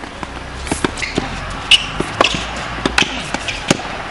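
Tennis balls being struck by rackets and bouncing on a hard court: a quick, irregular string of sharp pops and thuds, about ten in all.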